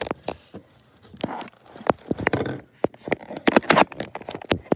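Handling noise: a run of irregular clicks and knocks as the camera and hard plastic dinosaur figures are moved and bumped.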